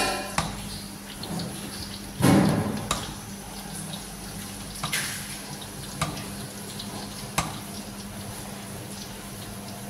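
A metal ladle stirring a pot of oyster mushroom soup: liquid sloshing, with sharp clinks of the ladle against the pot every second or two and a louder thump about two seconds in. A steady low hum runs underneath.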